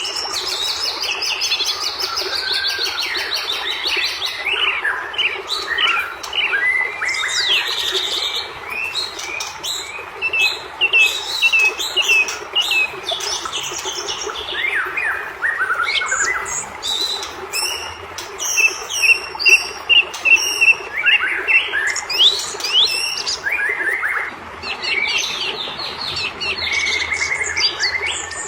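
White-rumped shama (murai batu) in full, agitated song: a long, unbroken run of varied whistles, rapid chirps and sharp sweeping notes, over a steady hiss.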